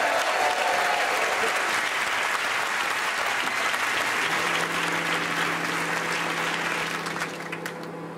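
Studio audience applauding, with a brief whoop in the first second. About four seconds in, a steady low hum joins the clapping, and the applause cuts off suddenly at the end.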